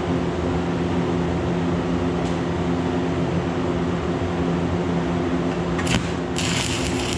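Old stick (arc) welder humming steadily, then the arc strikes about six seconds in and the rod starts crackling. The weld is running a little cold: the heat setting has just been raised slightly and is still not quite hot enough.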